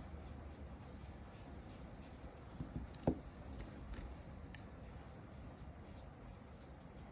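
Faint scratchy handling sounds of a fine nail-art clean-up brush working around the edge of a painted fingernail, with a few light taps about halfway through, the loudest a single sharp knock, and another small tap a moment later.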